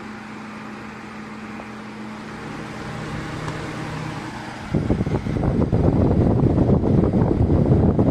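Mondial 40 cm desk fan running with a steady motor hum and whoosh of air, slowly growing louder. About five seconds in, its air blast hits the microphone and turns into loud, rough wind rumble.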